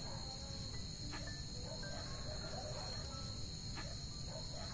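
Night chorus of crickets trilling steadily at a high pitch, with two faint knocks.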